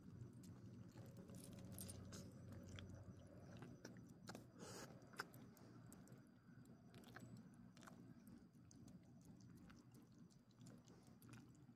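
Faint chewing and licking of two small dogs eating crumbled soft meat dog treat from a bare palm, heard as scattered small clicks and smacks.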